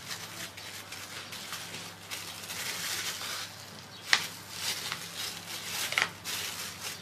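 Thin plastic bag rustling and soft handling noises as minced chicken is pressed by hand into a bag-lined jar lid to shape a patty, with two sharp crackles about four and six seconds in.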